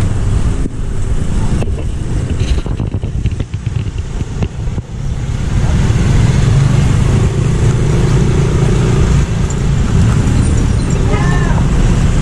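Road traffic crossing the level crossing close by: the engines of motorcycles and small cars running as they pass. The rumble grows louder and steadier about halfway through.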